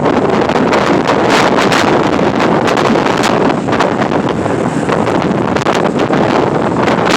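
Strong wind from an approaching thunderstorm blowing hard across the microphone: a loud, continuous rumbling buffet broken by rapid crackling gusts.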